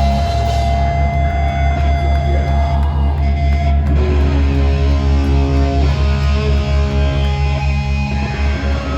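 Heavy metal band playing live: guitar-led music over a heavy, steady low end, with an even pulsing beat.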